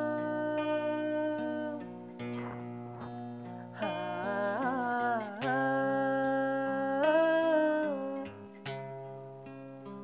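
Song in an acoustic arrangement: acoustic guitar under a voice singing long wordless 'haaa' vowels, with a wavering run in the middle, turning to humming near the end.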